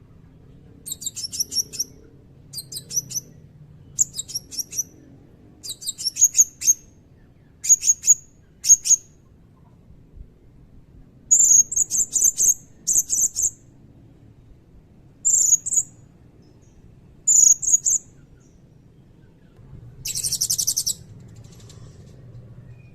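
Blue-crowned hanging parrot (serindit) singing: repeated short phrases of rapid, very high-pitched chirps and shrill whistled notes with brief pauses between them, and a buzzy trill near the end.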